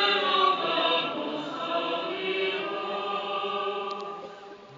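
Choir singing the short sung response to an intercession of the Prayer of the Faithful, in held notes that fade out near the end.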